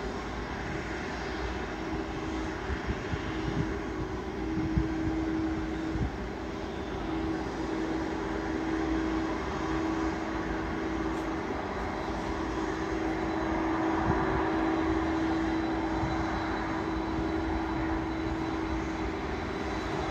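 Jet engines of a twin-engine widebody airliner running on the ground: a steady hum with a steady droning tone.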